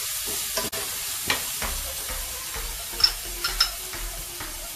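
Dry rice browning in hot oil in a metal frying pan: a steady sizzle while a metal spoon stirs and scrapes through the grains, with a few sharp clinks of spoon on pan, the loudest about three seconds in.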